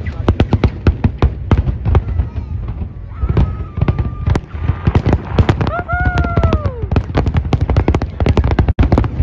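Aerial fireworks display going off in a dense, unbroken barrage, several sharp bangs a second.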